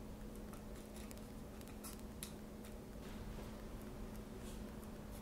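Fingertips pressing and flattening small balls of mochi dough on a miniature wooden cutting board: faint soft taps and scattered clicks, most distinct about two seconds in, over a steady low hum.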